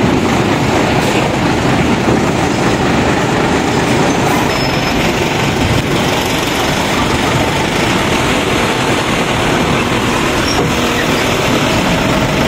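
Loud, steady rumble of machinery on a car ferry's enclosed vehicle deck.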